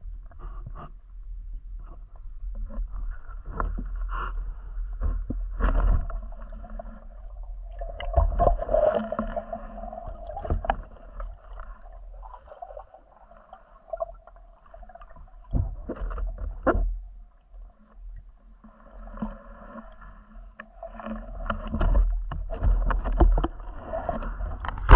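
Muffled sloshing and gurgling of water moving around the camera as a diver swims while spearfishing, with scattered knocks and a few louder surges.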